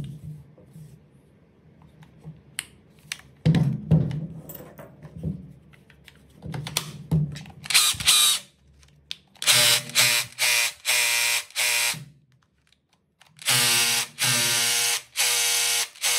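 Makita DHR243 cordless rotary hammer's brushless motor run on the trigger in short bursts, a test run after repair: five quick bursts, a pause, then a longer one and three more. Before the bursts there are handling clicks and knocks as the tool is gripped.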